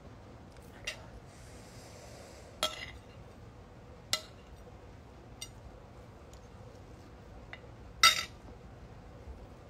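Cutlery clinking against a plate a few separate times while eating, the loudest clink about eight seconds in, with a short soft rustle between the first two.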